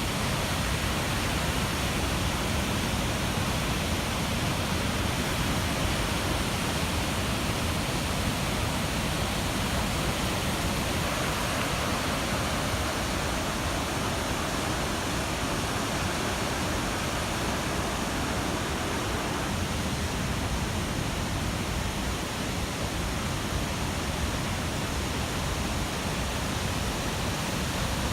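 A river swollen into a torrent by typhoon rain, its floodwater rushing with a steady, unbroken noise.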